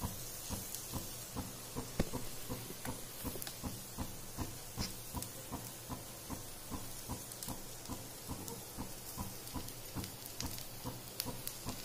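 Semolina uttapam batter cooking on a hot tawa: a faint sizzle with a quick, steady run of small pops, about four a second, over a low hum.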